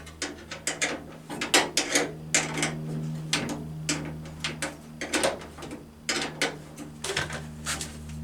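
Ratchet spanner clicking in short irregular runs while bolts on a radiator mounting bracket are started and done up, with a steady low hum underneath.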